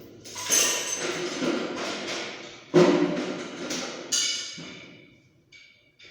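Three sharp strikes on a hard object, each followed by a ringing tone that fades over a second or more.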